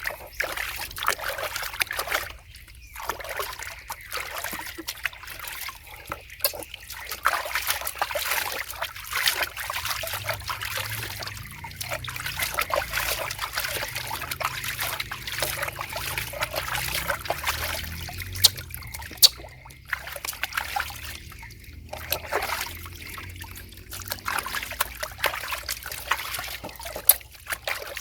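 Water trickling and splashing in small uneven spurts, with a few short pauses.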